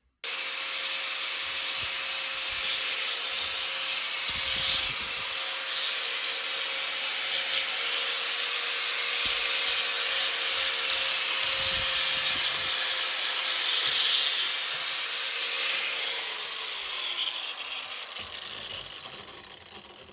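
Handheld electric power tool running steadily, its motor whine under a harsh rasping noise from the work, then winding down over the last few seconds as it is switched off.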